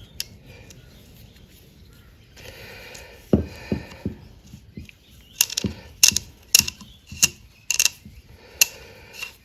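Sidchrome ratchet handle's mechanism clicking as it is worked by hand: a few faint ticks, then from about a third of the way in a series of sharp single clicks at uneven intervals, roughly two a second.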